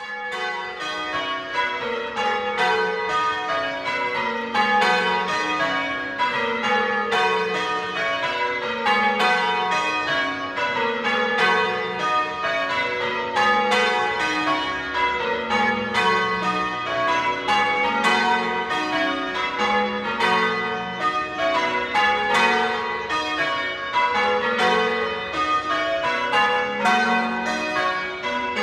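Full-circle church bells ringing rounds, heard from outside the tower: the bells strike in turn from highest to lowest, the same falling row repeated evenly over and over.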